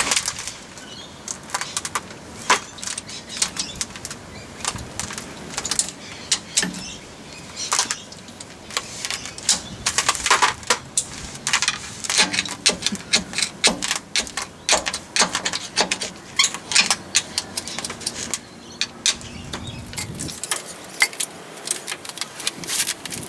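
Metal clicking and clinking of hand tools, a ratchet and socket on the nuts that hold the rear diff centre to a Landcruiser's solid axle housing, as the nuts are undone. The clicks come in irregular clusters, several a second.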